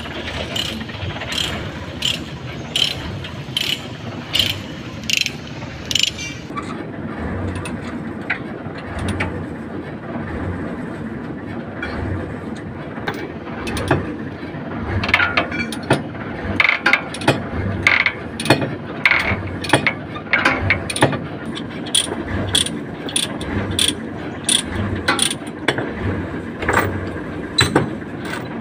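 Ratchet chain binder being cranked to tighten a tie-down chain on a truck deck: regular ratchet clicks about two a second for the first six seconds, then a longer, denser run of clicking from about fourteen seconds in, over a steady low rumble.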